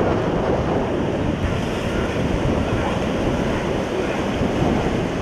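Surf washing on a sandy beach, mixed with steady wind buffeting the microphone.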